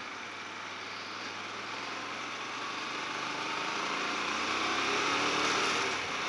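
Hyosung Comet GT250R motorcycle's V-twin engine running under way, mixed with wind rushing over the bike-mounted microphone. It grows louder and rises in pitch over the last few seconds as the bike speeds up.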